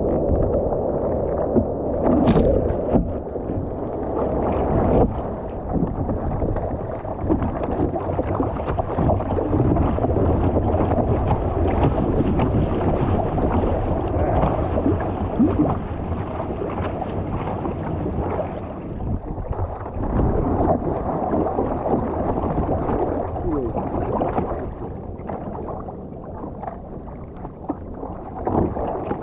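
Water rushing and splashing around an Epic V7 surfski's hull and paddle blades as it is paddled through surf, heard from a camera on the front deck, with some wind on the microphone. There is one sharp splash about two seconds in, and the rush eases somewhat near the end.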